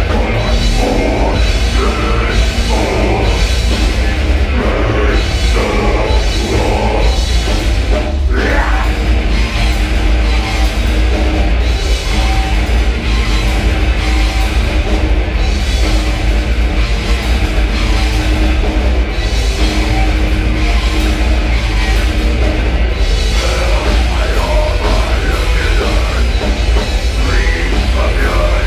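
A heavy metal band playing live at full volume, with drum kit and loud, dense guitars and bass. A brief rising glide comes about 8 seconds in, and a long held note runs through the middle of the passage.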